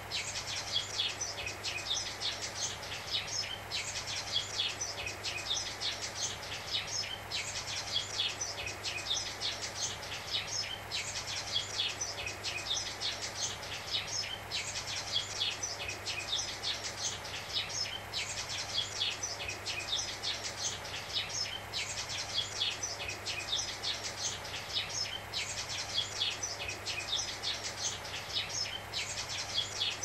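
Sparrows chirping in a rapid, continuous chatter over the steady hiss of analog TV static, with a low steady hum underneath.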